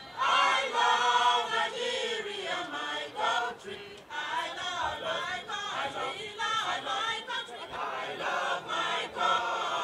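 A women's choir singing together.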